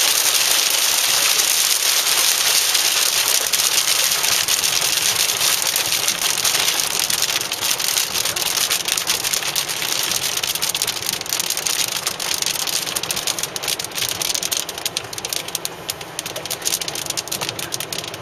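Heavy monsoon rain drumming on a car's roof and windshield, heard from inside the moving car. It starts as a dense hiss, then grows quieter and breaks up into separate drop hits over the second half as the downpour eases.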